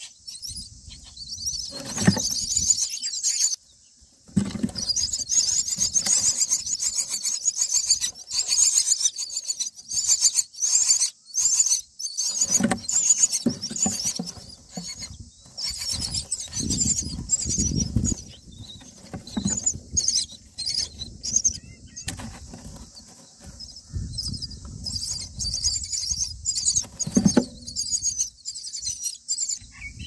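Common myna nestlings begging: a dense stream of rapid, high-pitched squeaky calls that stop briefly about four seconds in. Rustling and bumps come from the adult moving about on the twig nest.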